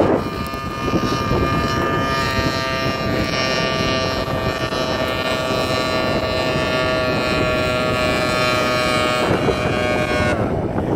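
Losi 5ive-T's OBR 47cc two-stroke engine running on at a steady high pitch with nobody at the controls, as the runaway truck drives itself, with wind buffeting the microphone. The engine cuts out about ten seconds in.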